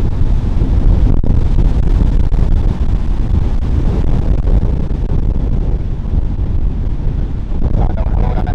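Storm wind buffeting the microphone: a loud, steady low rumble.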